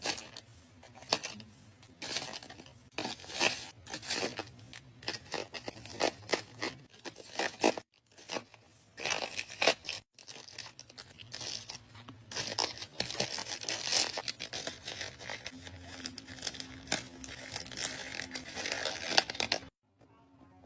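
Makeup products handled close to the microphone: a dense run of clicks, taps, scrapes and crinkling. It comes in edited takes, broken by brief silences about 8 and 10 seconds in and near the end.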